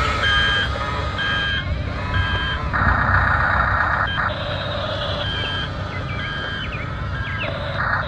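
Electronic reversing beeps from a scale RC construction machine's sound module, repeating about once a second over a steady mechanical hum.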